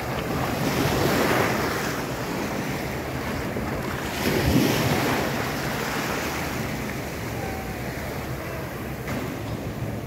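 Small waves breaking on a sandy beach, surging louder twice, about a second and four and a half seconds in, with wind buffeting the microphone.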